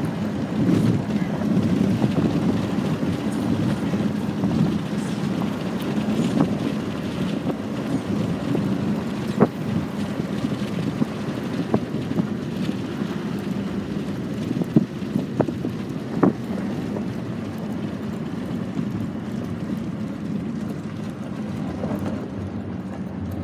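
Steady vehicle running noise with wind buffeting the microphone, and a few scattered sharp knocks partway through.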